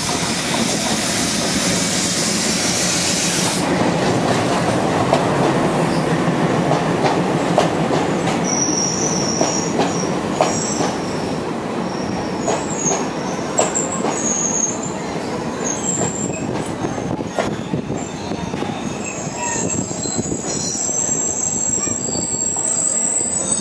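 A WDM-3D diesel locomotive runs past close underneath with a loud rush for the first few seconds. Its passenger coaches follow, wheels clattering with many sharp clicks over the rail joints. From about a third of the way in there are broken high-pitched squeals from the wheels and brakes as the arriving train slows, with one held squeal near the end.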